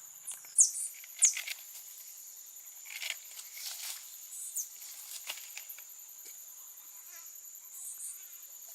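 A steady high insect drone, with two loud short chirps falling in pitch about half a second and just over a second in, and a few brief scratchy noises in the middle.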